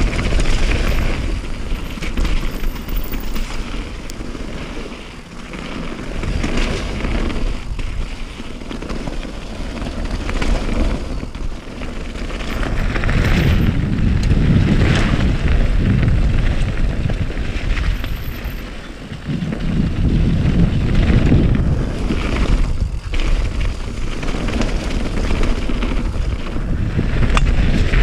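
Wind buffeting the microphone, rising and falling in uneven gusts, with a heavy low rumble.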